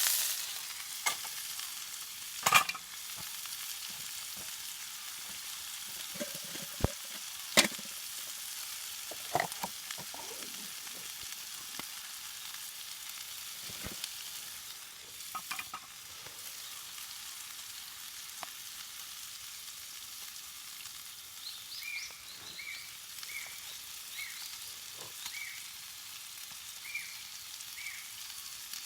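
Food sizzling steadily in a hot pan, with sharp knocks and clicks of a utensil against the pan now and then. A run of short high chirps near the end.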